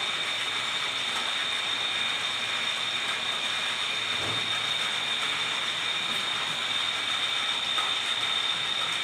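Metal lathe running steadily: an even mechanical whir with a steady high-pitched whine through it.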